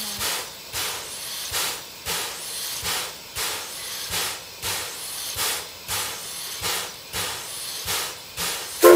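C11 steam locomotive standing with its steam-driven air pump working, exhausting in regular puffs about twice a second as it charges the air brakes. A brief, loud ringing clank near the end.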